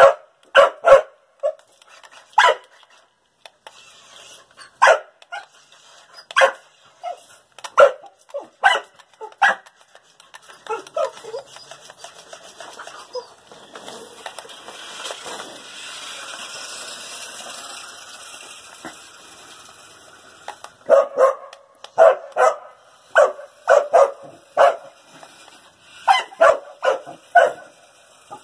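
Dog barking at a remote-control toy car in short, sharp single barks that come in bunches, with a quiet spell midway filled by a few seconds of steady noise.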